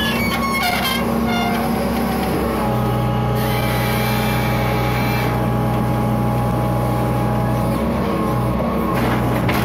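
Hitachi EX120 long-reach excavator's diesel engine and hydraulics running steadily. The low hum shifts in strength a few times as the arm and bucket work the bank.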